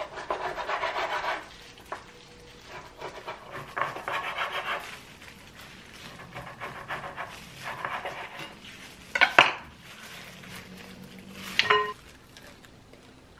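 Kitchen knife sawing through a rack of raw pork back ribs on a wooden cutting board in three spells of back-and-forth strokes. Then two sharp knocks, the second with a brief glassy ring.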